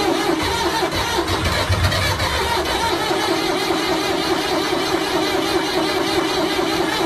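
Old computer powering up with a loud, steady mechanical hum that sounds like a generator engine running, with a deeper rumble in the first few seconds.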